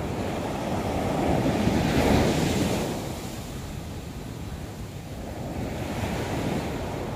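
Heavy sea surf breaking and washing up the sand, from large waves in a rough sea; it swells to a peak about two seconds in and then eases. Wind buffets the microphone.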